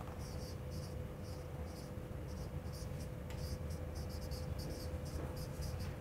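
Felt-tip marker scratching across a whiteboard in many quick, short strokes as words are written.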